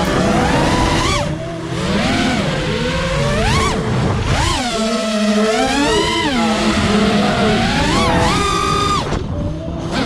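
5-inch FPV freestyle quadcopter's four Emax Eco 2306 brushless motors and HQProp propellers whining, the pitch swooping up and down over and over as the throttle is punched and chopped through flips and dives. The sound thins briefly about a second and a half in, about four seconds in, and near the end, where the throttle drops off.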